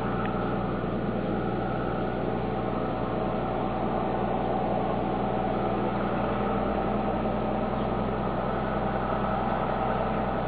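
Steady mechanical drone, like an engine running at a constant speed, made of many steady hum tones that hold unchanged throughout.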